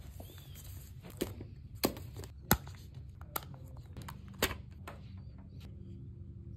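Sharp plastic clicks and taps from handling Oakley Airbrake motocross goggles and unclipping their lens, about five over the first few seconds, the loudest about two and a half seconds in, over a low steady hum.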